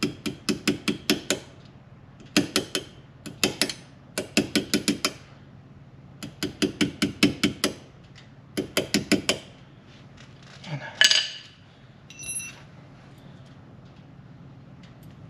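Hammer tapping a pin punch, metal on metal, to drive the pad-retaining pin out of a red SRT brake caliper: six quick runs of rapid blows, each of about three to eight strikes. Near the end comes a short scrape and then a single ringing metallic clink.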